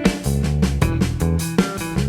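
Background music: an upbeat rock-style track with plucked guitar and a steady beat.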